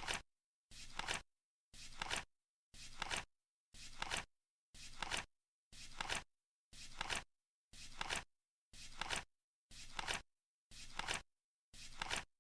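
Flip clock ticking off the seconds: once a second a flap flips over, each a short swish that ends in a sharp click, with dead silence between.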